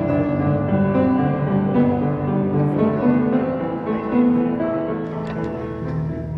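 Piano music: a piano played in a run of notes over lower chords.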